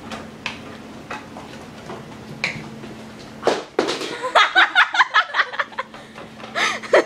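A few light hand claps, then about halfway through a loud burst of high, excited voices laughing and squealing, and another short outburst near the end.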